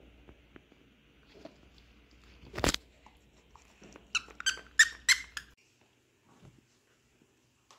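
A dog chewing a plush penguin toy and making its squeaker squeak: one loud squeak, then a quick run of about five squeaks a second or so later.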